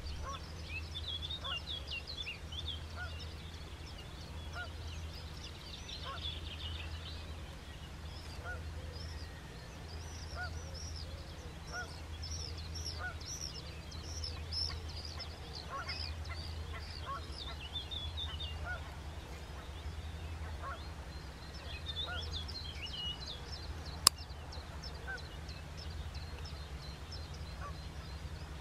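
Outdoor bird chorus: many small songbirds chirping high and quick throughout, with a lower call repeating about once a second over a steady low hum. A single sharp click about 24 seconds in.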